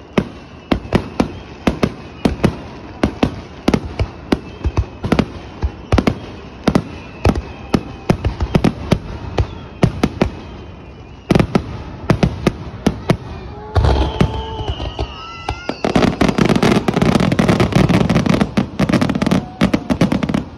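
Aerial firework shells bursting in a rapid-fire barrage: sharp booms about two or three a second, each with an echoing tail. About fourteen seconds in comes a heavier boom, and the last few seconds are a dense, continuous crackle of many bursts at once.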